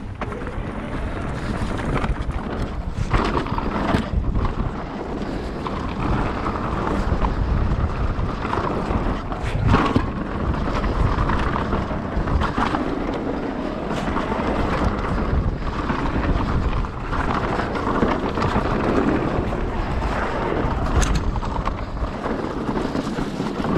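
Mountain bike riding fast down a dirt trail: steady tyre roar and wind buffeting the microphone, with occasional sharp clacks as the bike rattles over bumps.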